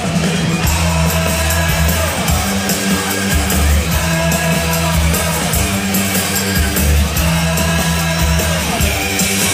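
Rock band playing live and loud, with electric guitar over a repeating bass line, recorded from within the audience.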